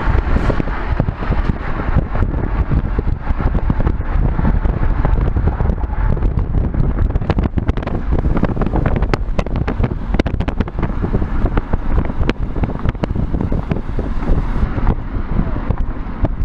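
Wind buffeting the microphone in a loud, low rumble, with a run of sharp crackles through the middle.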